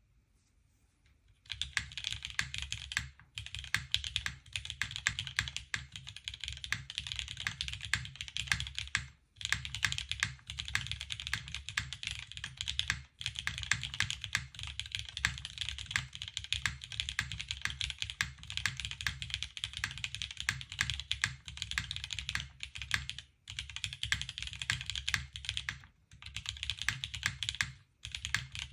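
TGR Jane V2 CE custom mechanical keyboard being typed on steadily: vintage black linear switches in a polycarbonate plate with GMK keycaps, keys clacking fast. Typing begins about a second and a half in, with a few brief pauses.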